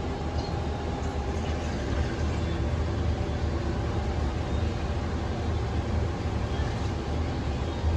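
Steady low rumble with a faint hiss over it.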